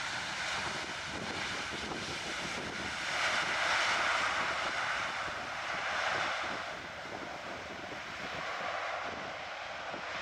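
Jet engine noise of a Boeing 777-300 airliner, a steady rush that swells about three seconds in and again around six seconds, then eases off.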